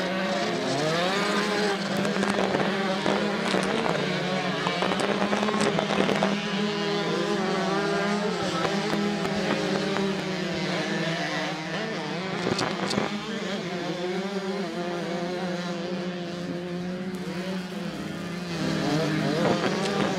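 Two-stroke 85cc motocross bikes racing, their engines revving up and down as they ride round the track. A steady low hum runs underneath, and one bike revs up near the end.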